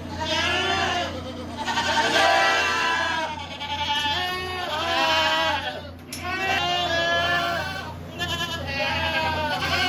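Many goats bleating in a barn, one call after another and often overlapping, some with a wavering quaver, over a steady low hum.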